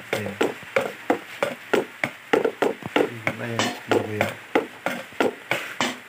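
Close-up mouth sounds of someone eating rice by hand: a quick, even run of wet smacking clicks, about three a second, with a low voice in the middle.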